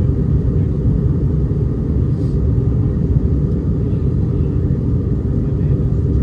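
Steady low cabin rumble of an Airbus A319-100 airliner in flight on approach: engine and airflow noise heard from a window seat inside the cabin.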